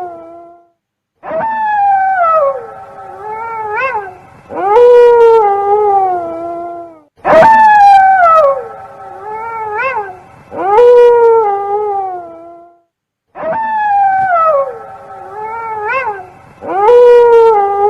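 Wolf howling: a run of long howls, each sliding up and then falling away, with short breaks between them.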